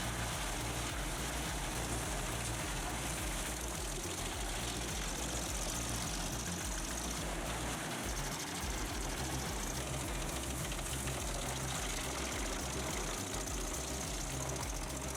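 Firewood processor running, its engine giving a steady drone under continuous mechanical noise.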